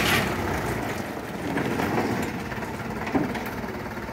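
Dump truck engine running while gravel and stones slide and rattle off its raised bed, loudest at first and easing off. A single sharp knock about three seconds in.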